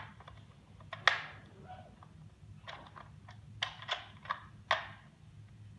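Hard plastic clicks and clacks from a Nerf Zombiestrike Doominator toy blaster being handled and fitted together: one sharp snap about a second in, the loudest, then a handful of lighter clicks.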